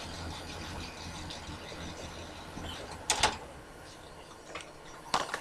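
A low steady hum and hiss of background noise, with a brief double knock about three seconds in and another short knock near the end.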